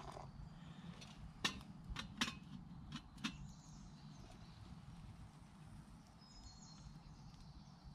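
A stainless-steel camp kettle clinking as it is lifted on a stick and hung back on a pot-hanger: about five sharp metal clicks and knocks between one and a half and three and a half seconds in. Faint high bird calls come near the end.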